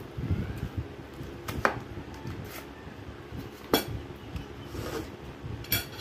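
Metal cutlery clinking against dishes: a few sharp clinks about two seconds apart, over a low background rumble.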